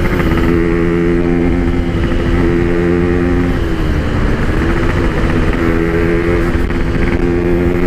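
Yamaha RX-King 135cc single-cylinder two-stroke motorcycle fitted with a Packing Power PK1 exhaust, ridden at a steady engine speed. The note dips briefly about halfway through and picks back up. The exhaust tone is mellow and soft rather than loud and raspy.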